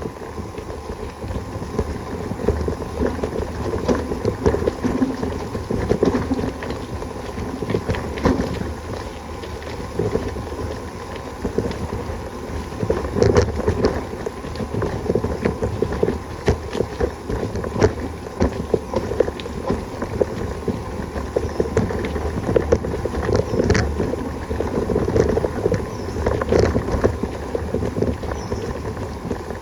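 Wind buffeting the microphone over a steady, irregular rattle of small knocks and clatter.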